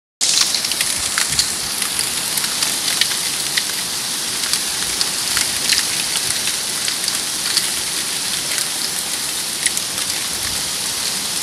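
Torrential rain mixed with hail pelting a flooded block-paved driveway and road: a dense, steady hiss with frequent sharp ticks of individual impacts.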